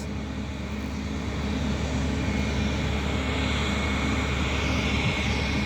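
Jet engines of an Embraer E195-E2, Pratt & Whitney PW1900G geared turbofans, running as a steady rush that slowly grows louder. A faint high whine comes in after a couple of seconds.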